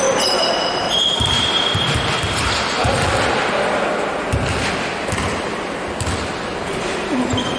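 A basketball being dribbled on an indoor court, with repeated thuds about one or two a second. Short high squeaks of players' shoes on the floor come through, mostly near the start and the end.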